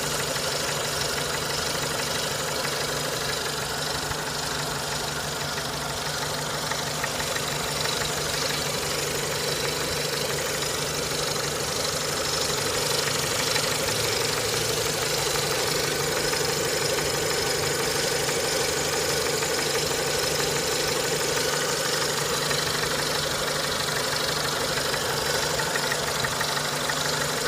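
Renault Mégane II's K4M 1.6-litre 16-valve four-cylinder petrol engine idling steadily, with extraneous knocking noises that the owner has not yet traced.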